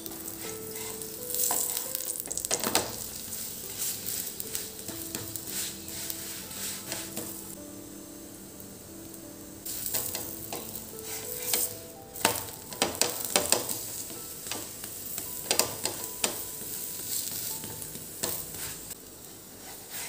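A flatbread sizzling as it fries on a tawa (flat griddle), with a wooden spatula scraping and pressing it in short strokes, most of them in the second half.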